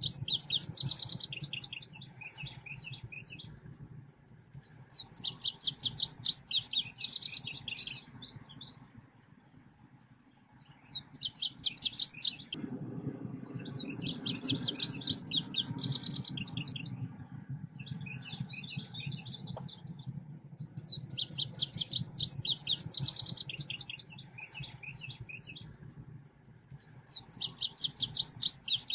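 Recorded song of the selendang biru bird: fast, rapidly repeated high chirping notes in phrases of about two seconds, repeating every few seconds. A steady low hum runs underneath and grows louder a little before halfway.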